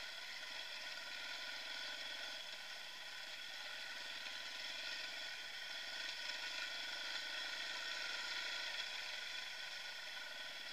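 Dirt bike engine running steadily while riding along singletrack, heard thin and steady through the rider's own camera, with little low end.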